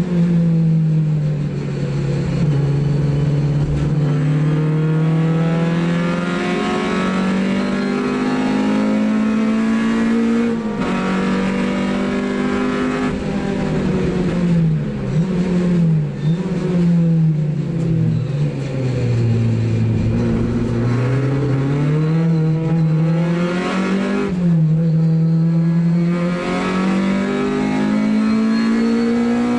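Opel Kadett race car's engine heard from inside the cabin at racing speed, its revs climbing and dropping sharply several times through gear changes and braking for corners, over steady road and tyre noise.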